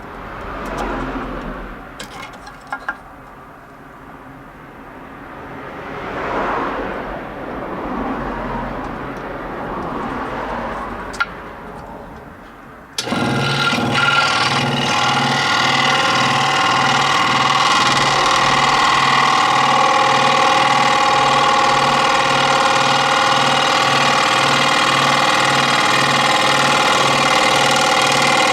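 Handling noises and a few light clicks, then an electric scroll saw switches on abruptly about halfway through and runs steadily with a fast, even, pulsing hum.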